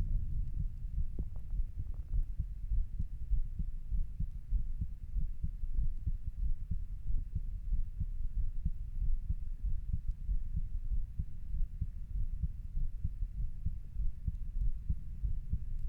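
A person's heart beating: a steady run of low, dull heartbeats.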